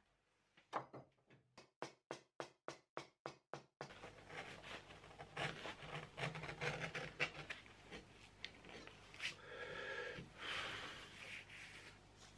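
A run of about a dozen sharp clicks, roughly three a second, from hand nippers snipping at the leather edge of a shoe bottom. Then a flat metal blade scrapes back and forth across the leather bottom in short, quick strokes.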